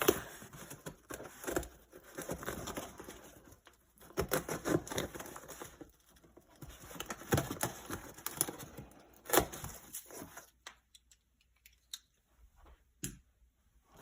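A cardboard box and its paper packing being opened and handled by hand: tearing, crinkling and rustling with small knocks. The handling thins out to a few scattered clicks for the last few seconds.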